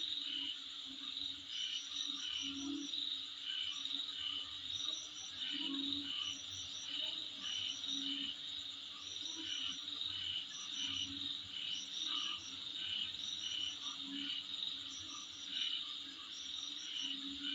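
Insects calling steadily, a chorus of high chirping with short higher trills repeating about once a second, over a lower pulsing call.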